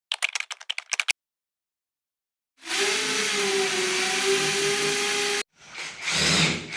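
A rapid run of about a dozen clicks lasting a second, then, after a gap, an electric power tool motor running at a steady pitch for about three seconds before cutting off suddenly; a swelling rush of noise follows near the end.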